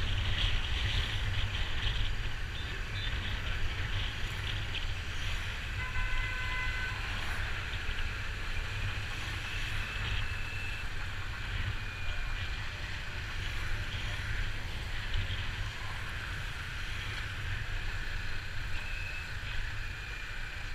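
Wind buffeting the microphone over a steady wash of street traffic noise while riding through city streets, with a short pitched tone, like a horn, about six seconds in.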